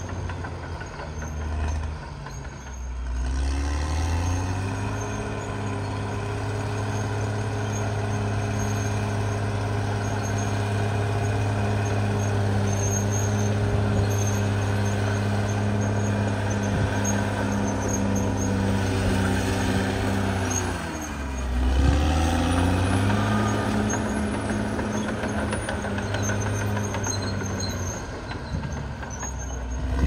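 Caterpillar D6R XL bulldozer's diesel engine working as the dozer pushes through felled trees and brush. It revs up a few seconds in and runs steadily. Past two-thirds of the way through its pitch drops sharply and then climbs back.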